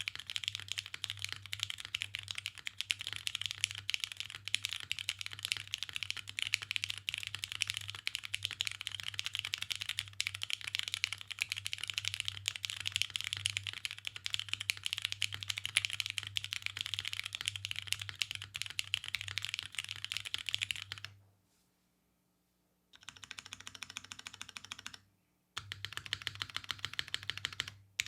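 Fast continuous typing on a custom float-mount mechanical keyboard with lubed Cherry MX Brown tactile switches, a carbon fiber plate with no dampening, and GMK doubleshot keycaps. The keystrokes stop for about a second and a half late in the stretch, resume, pause again briefly, then carry on.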